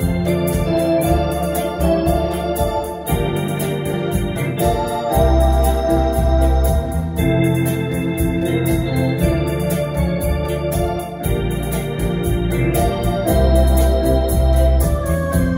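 Wersi OAX electronic organ played live: held chords and melody over deep bass notes that change every second or two, with a steady drum rhythm running underneath.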